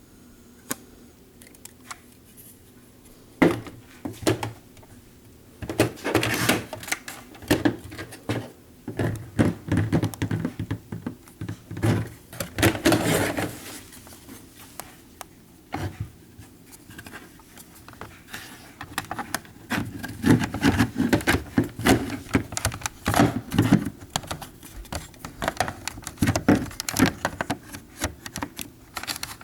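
Handling noise close to the microphone: irregular clicks, taps and rattles of small hard objects, with a few longer scraping stretches.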